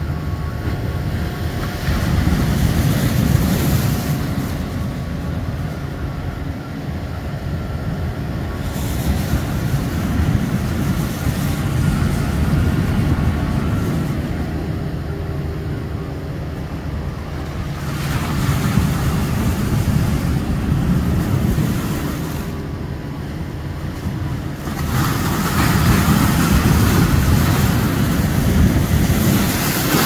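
Sea waves breaking and washing over a rocky shore: a continuous surf rush that swells louder four times, roughly every seven seconds, as each wave comes in.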